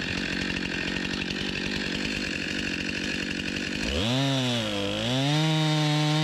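Stihl MS 261 C two-stroke chainsaw, mounted in an Alaskan chainsaw mill, idling. About two-thirds of the way in the throttle opens: the revs climb, sag briefly, then hold high and steady.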